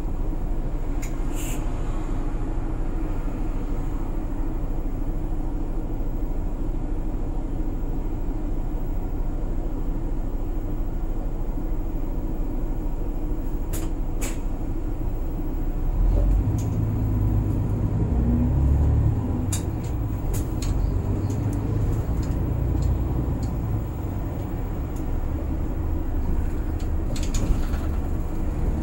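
Keihan city bus under way, heard from inside the cabin: a steady engine and road rumble whose low engine note grows louder a little over halfway through. Several short sharp hisses and clicks break in now and then.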